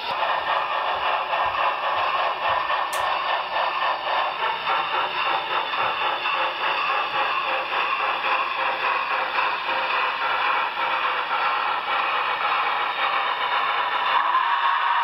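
HO scale model train running on the layout: a steady, dense clatter and hum from the steam locomotive and the Walthers Proto passenger cars rolling over the track.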